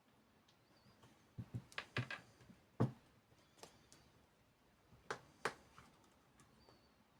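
Sharp clicks and taps of small repair tools and parts handled on an iPhone 8 Plus being taken apart: a quick cluster of clicks with the loudest about three seconds in, then two more about halfway through.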